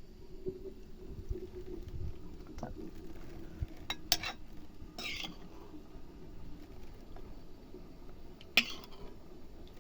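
Sounds of eating from a plate: a few sharp clicks and brief scraping sounds, about four seconds in and again near the end.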